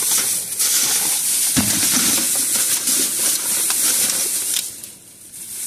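Thin plastic shopping bag rustling and crinkling as hands rummage through it, dying down near the end.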